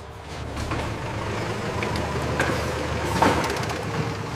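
Vehicle engine running steadily with a low hum, with several scattered knocks and clunks, the loudest a little past three seconds in.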